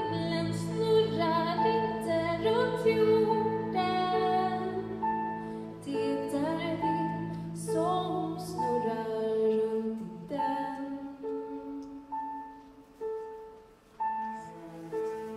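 Woman singing a slow ballad into a microphone over an orchestra, her voice wavering with vibrato above sustained low notes. About ten seconds in the low accompaniment drops away, leaving softer held notes that start again about once a second.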